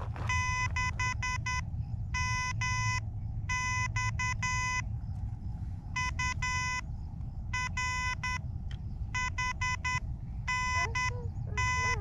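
Morse code tones from an Elecraft KH-1 transceiver: a steady beep keyed on and off in dits and dahs, in groups separated by short pauses, over a steady low rumble.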